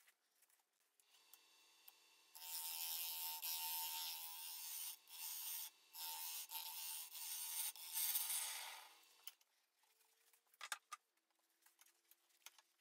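Bowl gouge cutting the inside of a wooden bowl spinning on a wood lathe: a loud, hissing cut with a few short breaks, over the lathe's steady hum. The cut stops about nine seconds in, leaving faint sounds and a few light clicks.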